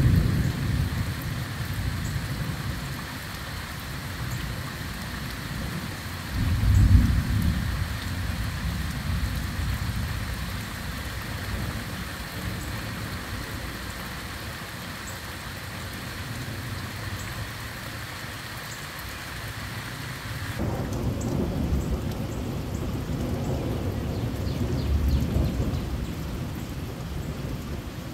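Heavy rain falling steadily on the garden, with low rolls of thunder swelling about seven seconds in and again in the last third. The sound of the rain changes abruptly about two-thirds of the way through, the hiss becoming duller and the rumbling heavier.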